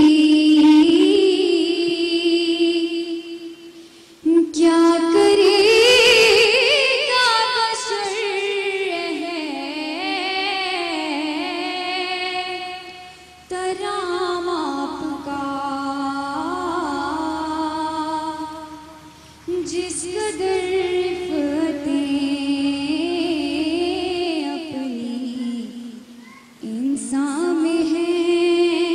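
A teenage girl reciting a naat, a devotional kalam, as a solo voice into a microphone. She sings long, wavering held phrases with short breaks for breath about 4, 13, 19 and 26 seconds in.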